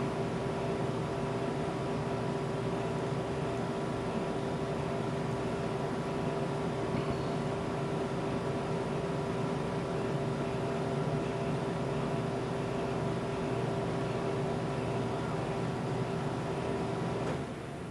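Steady mechanical hum with a constant pitched tone, like a fan or air-conditioning unit running, which drops away suddenly near the end.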